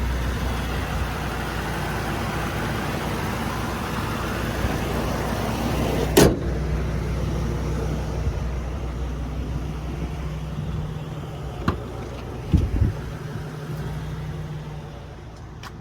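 A motor vehicle engine running steadily with a low hum, broken by a sharp knock about six seconds in and a few fainter knocks later on.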